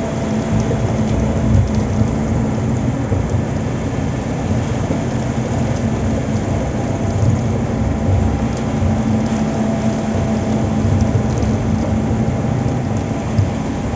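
Heavy construction machinery running steadily: a constant low rumble with a steady hum underneath.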